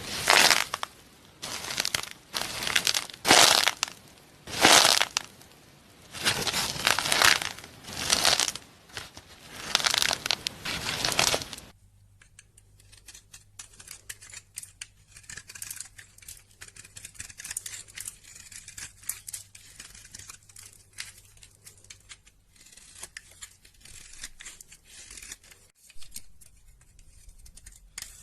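Loud rasping, tearing strokes, a dozen or so in irregular succession. About twelve seconds in they give way to a much quieter stretch of fine crackling over a low steady hum.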